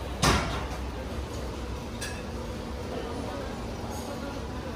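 Stainless steel roll-top chafing dish giving one loud metal clank as its lid is opened, then a ladle clinking lightly in the pan about two seconds in, over a steady murmur of voices.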